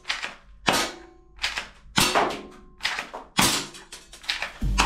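Plastic toy gun parts being worked by hand: a quick series of sharp clicks and clacks, about ten in a few seconds, some louder than others.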